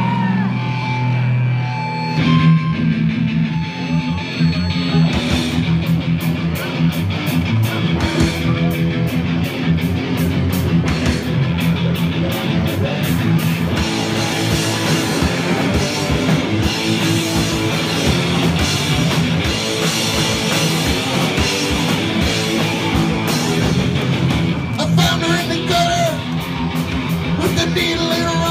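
Live punk rock band playing loud: electric guitars over a drum kit, with cymbals struck all through.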